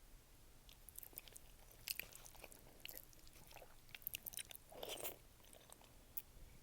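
Faint close-up chewing of ramen by a denture wearer: scattered wet clicks and smacks, with one longer, louder mouth sound about five seconds in.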